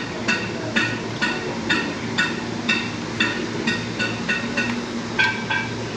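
Engine oil glugging out of a plastic gallon jug into a funnel, air gulping back into the jug about twice a second, the glugs turning lower in pitch near the end.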